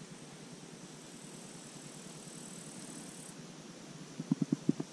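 Steady faint outdoor hiss. Near the end comes a quick run of about six soft clicks as the fishing rod and its inertial reel are moved.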